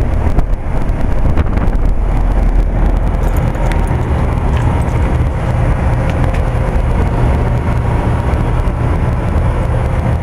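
1990 Bryant 5-ton straight-cool central air-conditioner condensing unit running with a steady low hum and a faint steady tone.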